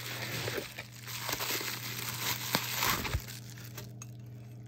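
Plastic bubble wrap crinkling and rustling as a wrapped teacup is unwrapped and pulled out of a cardboard box, with a few light knocks. The rustling stops about four seconds in.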